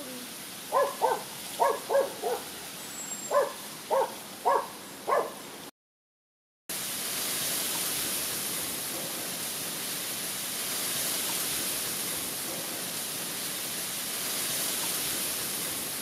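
About ten short, low-pitched animal calls, mostly in pairs, over the first five seconds. After a brief cut-out, a steady even outdoor hiss takes over, such as wind or rushing water.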